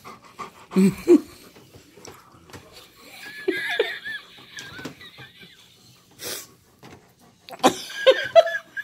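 A dog whines and warbles in high, wavering tones, begging for food at the table, in two spells, one a few seconds in and one near the end. A couple of short, lower vocal sounds come about a second in.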